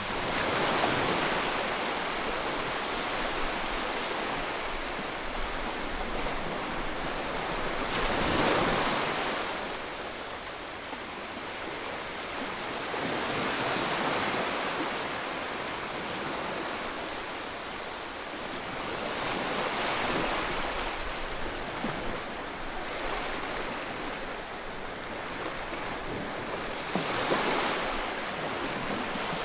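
Ocean waves breaking and washing onto the shore, a continuous surf hiss that swells with each wave every few seconds, strongest about a third of the way in and near the end.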